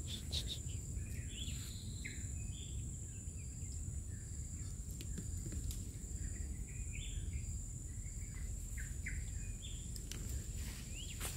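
Tropical stream-side forest ambience: a steady high insect drone throughout, with scattered short bird chirps over a low rumble.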